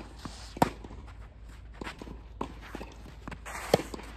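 Tennis rally: two sharp racket strikes on the ball about three seconds apart, about half a second in and near the end, with fainter hits and players' footsteps scuffing on the sand-filled artificial grass court in between.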